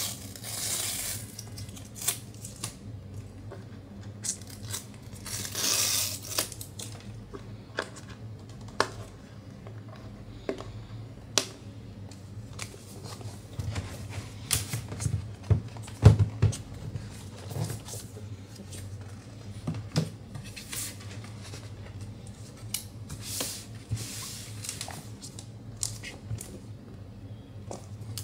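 Paper pull-tab seal strips on an Apple iPad Pro box being ripped off, twice near the start. Cardboard box handling follows: taps, knocks and paper rustles as the box is turned and the lid is lifted, with the loudest knock about halfway through. A steady low hum runs underneath.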